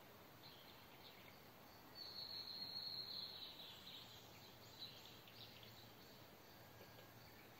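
Faint outdoor ambience. About two seconds in, a distant high-pitched trill lasts about a second and a half, followed by a few faint high chirps.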